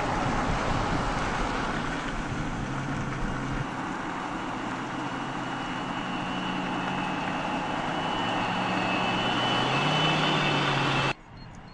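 Volvo Recharge concept car driving at speed: steady tyre and road noise with a low hum that steps up in pitch a few times and a high whine, all cutting off suddenly near the end.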